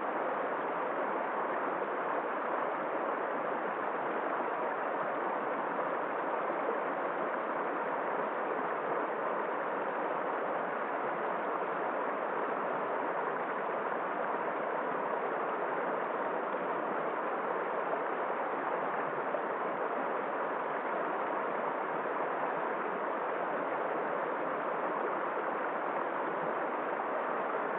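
Steady, even rushing of running water from a stream.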